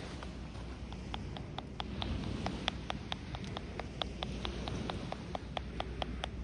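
Hands tapping in rapid, even rhythm in tapotement massage, about five light claps a second, over a low steady rumble of surf.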